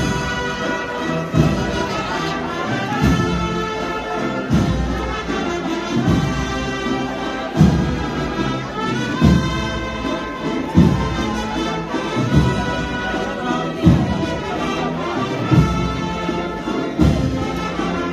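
Agrupación musical, a Spanish processional band of brass and percussion, playing a slow processional march: a brass melody over a bass drum stroke about every second and a half.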